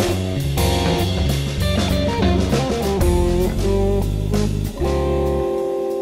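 Jazz fusion instrumental: guitar playing a busy melodic line over bass guitar and drum kit. About five seconds in, the band settles on a long held chord.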